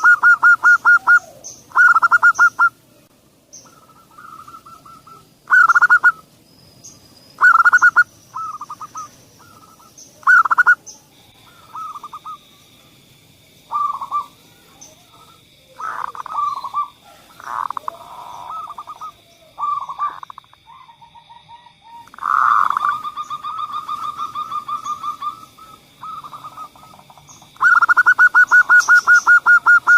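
Zebra doves (perkutut) cooing in phrases of rapid, evenly pulsed notes. Long runs come at the start and near the end, with shorter phrases and pauses in between. A faint steady high tone runs under the calls from about a third of the way in.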